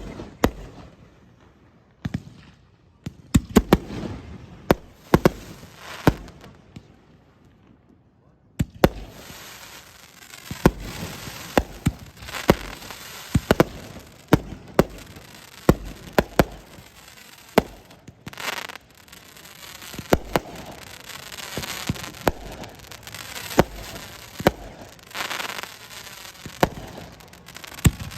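Fireworks going off: a few separate sharp bangs in the first eight seconds, then a dense run of bangs over a continuous crackling hiss.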